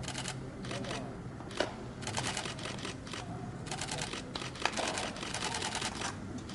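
Camera shutters firing in rapid bursts, several runs of fast clicking lasting about a second each. Two sharper single knocks stand out, one at about a second and a half in and one at about four and a half seconds in.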